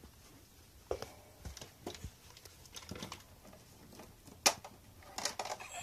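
Irregular light clicks and knocks of hard objects being handled, the sharpest about four and a half seconds in.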